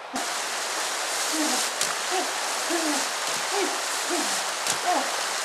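Rushing, splashing water running steadily, with a short, low, hoot-like call repeated every half second or so over it.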